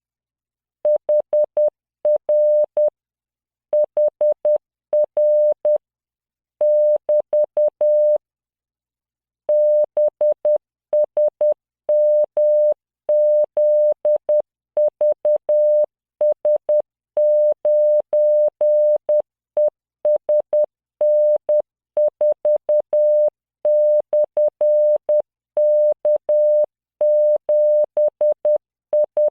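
Computer-generated Morse code practice tone at 10 words per minute: one steady beep pitch keyed into dots and dashes, starting about a second in, with a pause of over a second about a third of the way through.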